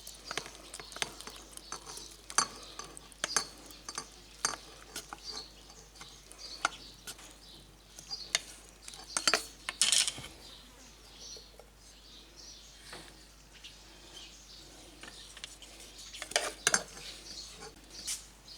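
A utensil clinking and tapping against a glass bottle and a pot as sliced shallots and whole spices are spooned into the bottle: scattered, irregular sharp clicks, a few louder knocks about ten seconds in and again near the end.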